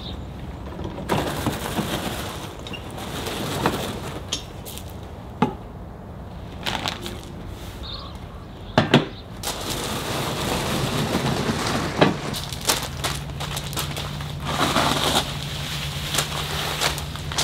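Gravel crunching under footsteps and a garden cart's wheels, with scattered sharp knocks and clatters as the plastic cart and plastic nursery pots are handled. A low steady hum comes in about two-thirds of the way through.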